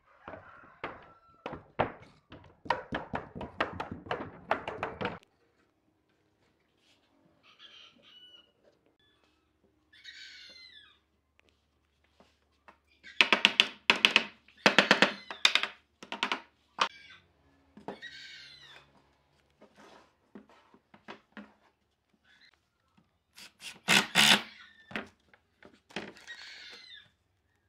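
Wooden boards knocking and being tapped into place on a workbench as a frame is assembled, in clusters of sharp thunks. Near the end comes a short burst from a Makita cordless impact driver, rattling as it drives a screw into the wood.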